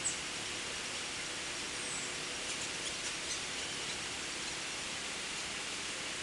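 A few faint, high, thin chirps from small birds over a steady hiss: one at the very start, a short falling one about two seconds in, and a small cluster around three seconds.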